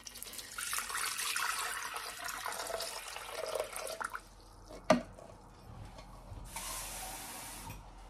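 Water poured from a plastic measuring jug into a Thermomix's stainless steel mixing bowl, a splashing stream that stops about four seconds in. A single sharp knock follows about a second later, then a shorter rush of water near the end.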